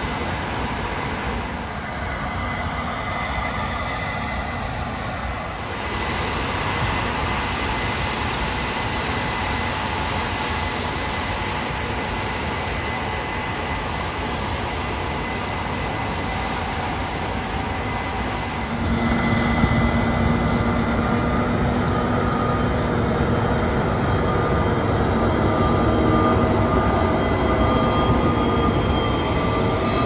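A Case IH 8250 combine and a Case IH Magnum tractor pulling a grain cart run together at harvest, a steady heavy-machinery drone. About two-thirds of the way through it gets louder and steady whining tones come in as the machines are heard close up.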